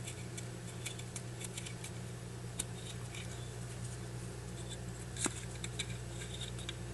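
Faint scratching and small clicks of a cotton swab being rubbed and twisted against the metal of a Zippo lighter's insert, with one sharper click about five seconds in, over a steady low hum.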